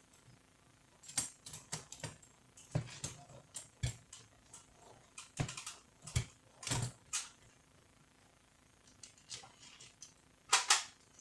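Irregular clicks, taps and rattles of plastic and metal parts being handled on a copier fuser unit, with a louder double knock near the end.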